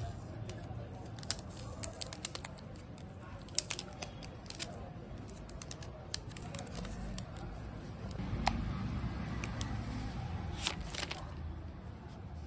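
Irregular sharp clicks and taps with some crinkling, as of a phone and its packaging being handled, over a faint low murmur.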